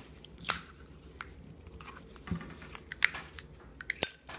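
Zippo lighter being handled: a series of short metal clicks and taps, the sharpest and loudest about four seconds in.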